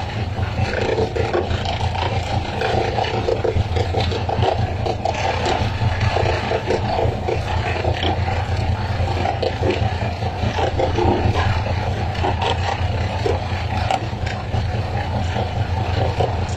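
Fishing boat's engine running with a steady low drone under continuous rushing and splashing water.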